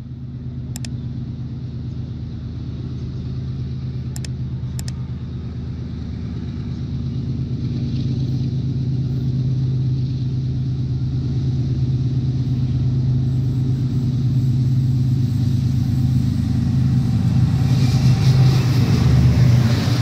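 Diesel locomotive hauling a passenger train, its engine drone growing steadily louder as it approaches. Near the end the hiss and clatter of wheels on rails builds as the locomotive draws level and passes.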